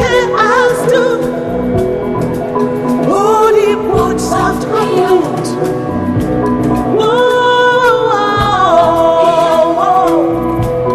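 Music with sung vocals: long held, wavering notes over sustained chords, and a few short low thuds underneath.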